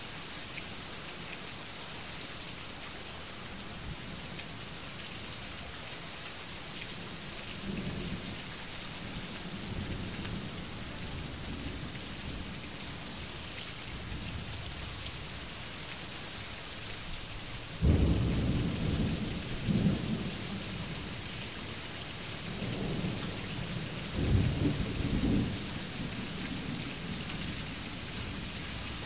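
Steady heavy rain with thunder: faint low rumbles about eight seconds in, a sudden loud thunderclap about eighteen seconds in that rumbles on for a few seconds, and more rumbling a few seconds later.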